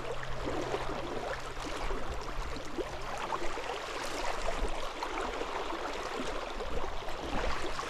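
Creek water running over riffles: a steady rushing and gurgling, with a faint steady low hum underneath.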